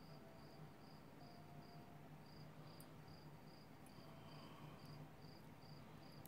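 Near silence with a faint cricket chirping steadily, about two to three chirps a second, over a low hum.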